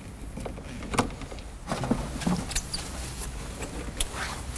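Rustle and clicks of jump-starter cables and clamps being handled and fitted to a flat car battery in the boot, with two sharp clicks, about a second in and near the end.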